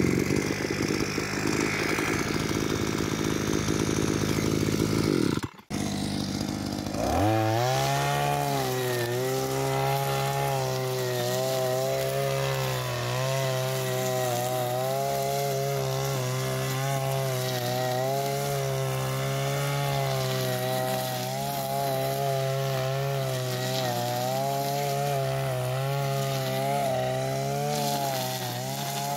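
Two-stroke petrol brush cutter engine running hard and close by. After a short break it revs up at about seven seconds and holds a high, steady pitch that wavers slightly as the line cuts through tall grass. This is a modified brush cutter with a recently replaced engine.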